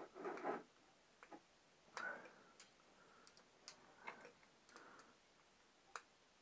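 Faint, scattered small clicks and ticks of a hand tool and fingers on the metal body of a Keihin two-stroke carburettor while its jets are being taken out, with a short rustle at the start, a brief scrape about two seconds in and a sharper click near the end.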